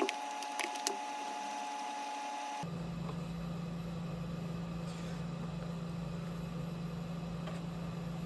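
A few light clicks in the first second from an H3 hex key working the sunglass holder's screws, over a steady low hum.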